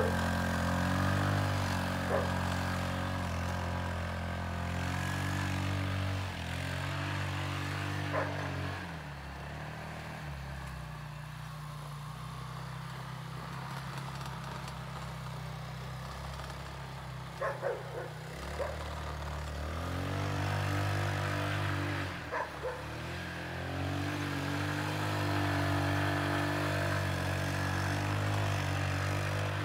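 150 cc automatic ATV engine revving up and down as the quad is ridden through snow, its pitch rising and falling with the throttle. It grows quieter for about ten seconds in the middle, then comes back louder, with a few brief sharp ticks along the way.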